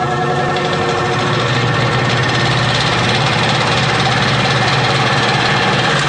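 Electroacoustic sound-design soundtrack. A droning chord fades in the first second into a dense, steady, machine-like rumble with a low hum and a fast rattling pulse, much like an idling engine.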